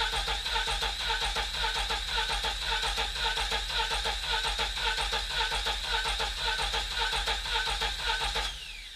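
A 1992 Lada VAZ 21053's 1500cc four-cylinder carburetted engine being cranked by its starter motor, a steady rhythmic churning with a whine over it. About eight and a half seconds in the cranking stops, and the starter's whine falls away as it spins down.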